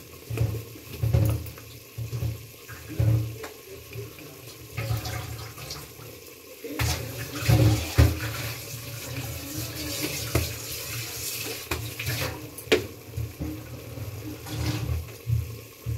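Thick curry bubbling and sizzling in an open aluminium pressure cooker, with irregular low pops and a stretch of louder hissing about halfway through. A few sharp clinks of a spoon or bowl.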